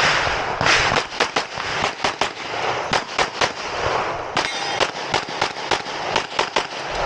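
Rapid 9mm pistol fire from a Canik METE SFT Pro during a USPSA stage run. Sharp shots come several a second in quick strings with brief gaps.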